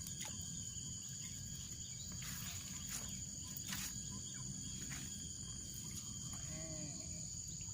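A steady, high-pitched insect chorus, with a few sharp clicks or knocks scattered through it and faint distant voices near the end.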